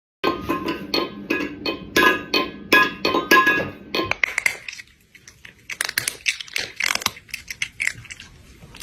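Music with regular struck notes, about three a second, for roughly four seconds, then softer scattered crackling and clicking.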